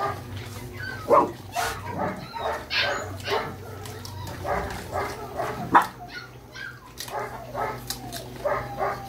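A large pack of dogs, mostly German shepherds, barking, yipping and whining over one another in short irregular calls, with two sharper, louder barks about a second in and near six seconds.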